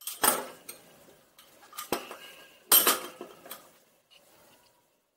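Candle-making utensils clinking and knocking as they are handled and set down: three sharp knocks, near the start, about two seconds in and about three seconds in, with lighter clinks between them.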